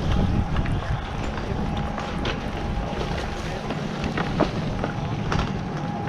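Riblet center-pole double chairlift's base terminal running: a steady low rumble from the bullwheel and drive, a faint steady hum, and several sharp clicks scattered through. Wind buffets the microphone.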